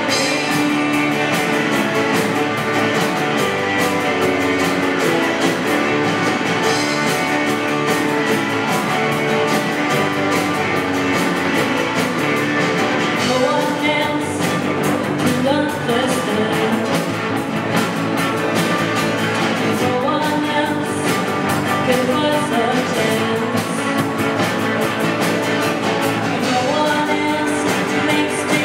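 Rock song with singing over electric guitars and drums, playing without a break.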